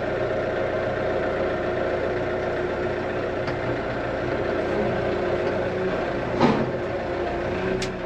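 Farm tractor engine running steadily, heard from inside the cab as the tractor drives down off a trailer, with one short thump about six and a half seconds in.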